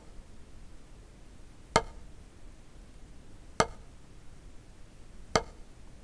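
Drumstick striking a rubber practice pad with single slow full strokes, three even hits about two seconds apart.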